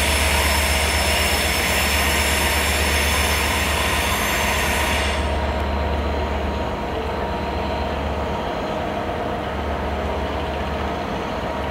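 Locomotive-hauled passenger train running slowly through the station, with a steady low diesel drone and steady mid-pitched tones. A high metallic hiss of wheels on rails runs over the first five seconds and stops suddenly.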